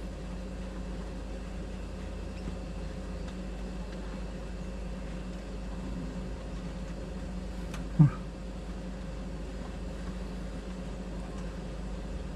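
Kings 75-litre dual-zone portable fridge's compressor running on its maximum setting, a steady low hum. A single short knock about eight seconds in.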